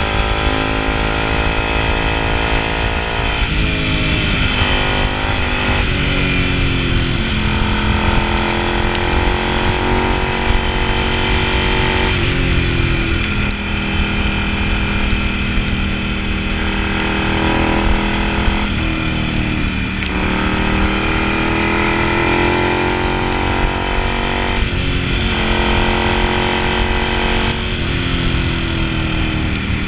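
Ducati Hypermotard's V-twin engine running on the road under way, heard from the rider's seat. Its note breaks, rises and falls several times as the throttle and gears change.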